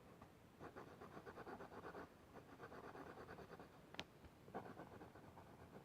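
Faint, rapid back-and-forth strokes of an art marker's nib scratching on paper as an area is coloured in, with one sharp click about four seconds in.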